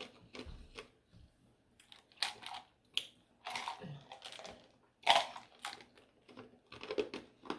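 Close-miked chewing and mouth smacks while eating chicken enchiladas: a string of irregular short clicks and smacks.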